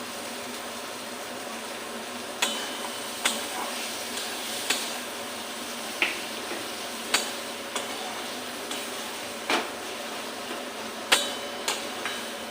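A metal spatula knocking and scraping against a cooking pan in about nine sharp clinks, some with a short metallic ring, as dried fish is stirred into frying spice paste. A steady hiss runs underneath.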